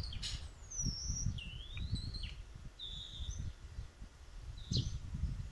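Birds chirping: a few short, high whistled calls, some gliding down in pitch and one rising and falling, over a low steady rumble.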